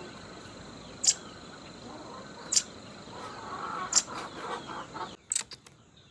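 A pet bird gives short, sharp calls, three of them about a second and a half apart, over a steady high-pitched drone.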